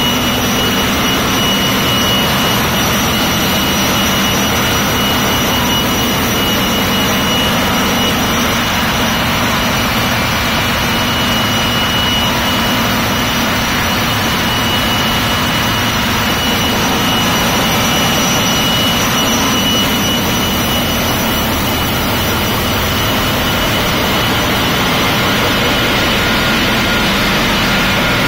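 Loud, steady hum of a container ship's engine room: running diesel generator sets and other machinery, with a thin, steady whine on top.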